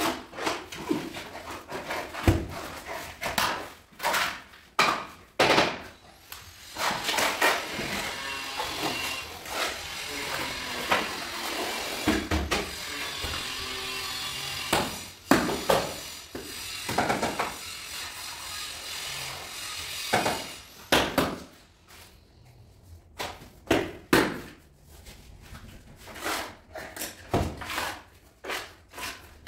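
Floor-tiling work: irregular knocks and taps of trowels and large porcelain tiles being set down and bedded into tile adhesive, with a longer stretch of scraping and shuffling in the middle.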